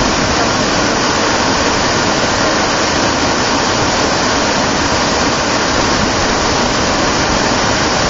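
Waterfall pouring into a plunge pool: a steady, loud rush of falling water.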